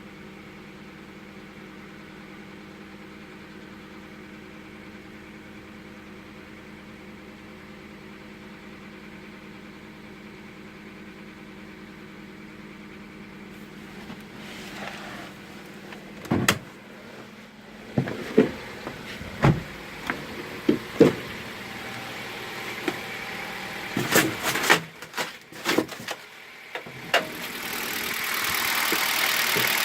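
Kia Rio 3 with its engine running: a steady hum, then from about the middle a string of irregular clunks and knocks. Near the end a much louder, hissier engine sound builds up.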